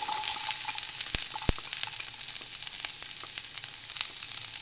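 Chopped garlic sizzling and crackling in hot coconut oil in a stainless steel pan, with two knocks just over a second in.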